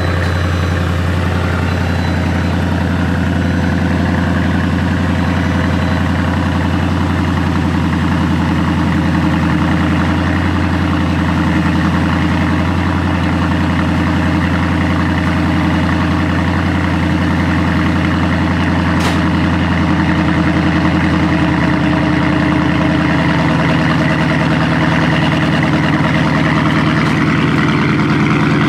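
Car engine idling steadily, with an even low hum that does not rev. There is a single sharp click about two-thirds of the way through.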